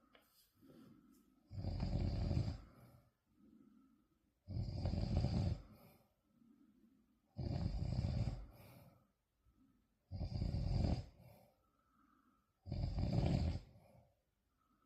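A sleeper snoring loudly: five long snores about every three seconds, with faint breaths in the gaps between them.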